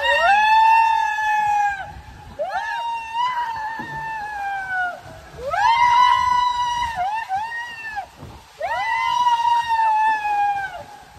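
Riders screaming on an enclosed tube water slide: about five long, high held yells, each a second or two long with brief gaps between.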